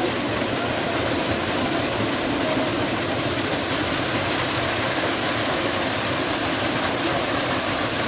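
Small waterfall pouring into a rock pool: a steady, even rush of falling water.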